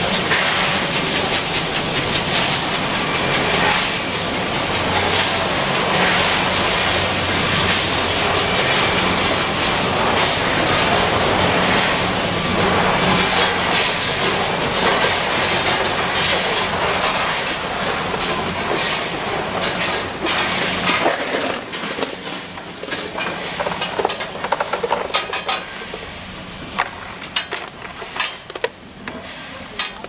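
Factory machinery running steadily with a low hum and constant metallic clattering. After about twenty seconds the machine noise falls back and separate clinks of small metal parts being handled stand out.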